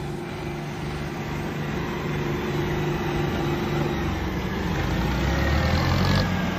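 Tractor diesel engines labouring under heavy load in a tractor tug-of-war pull. They grow steadily louder, and a deeper low note builds from about four seconds in.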